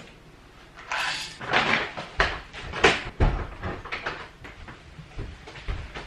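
Kitchen cupboard and containers being handled: a run of scraping rustles and sharp knocks over the first few seconds, then lighter clicks.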